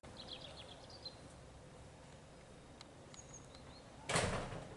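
Faint bird chirps over quiet outdoor background noise, then a brief loud rush of noise lasting about half a second near the end.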